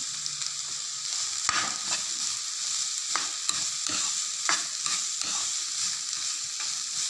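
Diced vegetables sizzling in ghee in a non-stick pan while a plastic spatula stir-fries them. From about a second in, the spatula scrapes across the pan roughly once a second over the steady sizzle.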